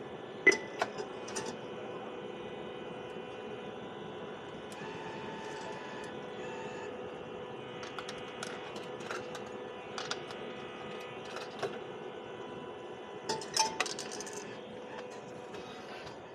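A steady hum with several fixed tones, broken by scattered light metallic clinks and clicks. The clinks come about half a second in and again in a quick cluster near the end.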